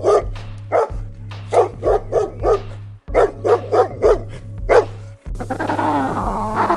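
Dog barking rapidly in runs of several sharp barks, with short breaks between runs. Over a steady background music bed. Near the end the barking stops and a different wavering, whining call begins.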